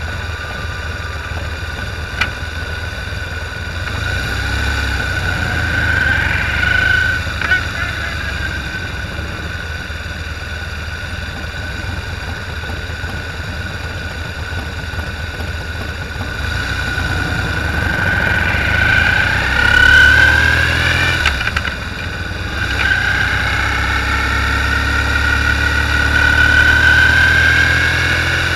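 Harley-Davidson V-twin motorcycle engines running as a group of bikes pulls away and rides off. The engine sound swells and rises in pitch as they speed up, twice, in the second half.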